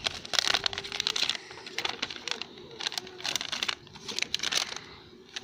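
Plastic toy packaging crinkling as it is handled in the fingers, in several short spells that grow quieter near the end.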